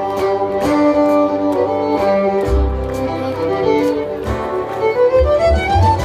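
Live band music: a violin melody over guitar, with a deep bass line coming in about halfway through, heard from well back in an outdoor audience.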